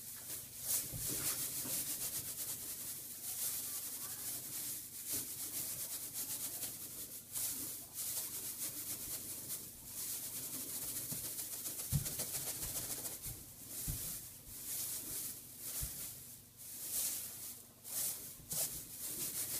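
Dry hay being rustled by hand, a crackly swishing that swells and eases in repeated waves, with a few soft low thumps among it. The rustling is the cue used to set guinea pigs popcorning.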